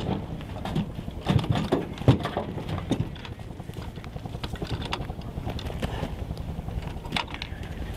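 Footsteps on a dirt and gravel track and a few sharp knocks of gear being handled and carried from a car trunk, most of them in the first three seconds, over wind rumbling on the microphone.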